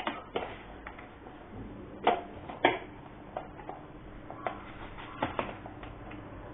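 Scattered light clicks and knocks of kitchen dishes and utensils being handled, a dozen or so irregular taps.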